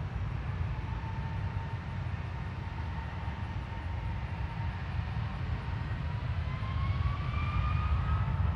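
Boeing 777's twin turbofan engines running with a deep rumble. A whine climbs in pitch from about six seconds in and the sound grows louder as the engines spool up for the takeoff roll.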